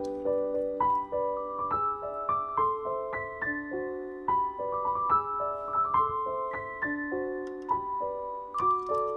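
Background piano music: a melody of single notes, a few each second, over held lower notes.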